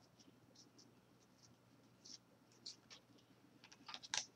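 Faint soft flicks and slides of 2013 Topps baseball cards being thumbed one by one from one hand to the other, with a quick run of louder flicks near the end.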